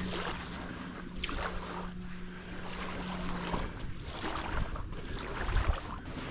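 Wind buffeting the microphone on open water, in uneven gusts, over a faint steady hum that stops a little past halfway.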